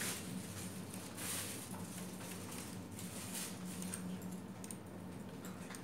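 Quiet room tone: a steady low hum with faint rustles, and a few small clicks near the end.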